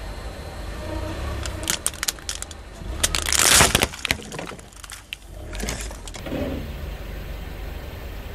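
A car tyre rolling over and crushing brittle objects: a run of sharp cracks, then a loud crunch about three seconds in, over the low rumble of the car.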